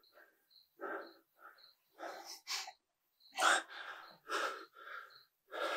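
A man's noisy breaths in short bursts, one or two a second, the strongest about three and a half seconds in.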